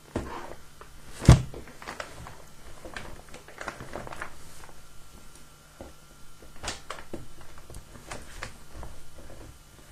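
Knocks and bumps of things being handled and packed, with one loud thump about a second in.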